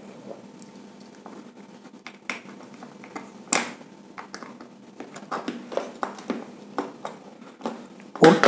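Small screwdriver turning the terminal screw of a plastic two-way switch to clamp a wire, with the plastic switch and fan regulator handled and set down on a hard surface: a run of light, irregular clicks and taps, with a louder knock near the end.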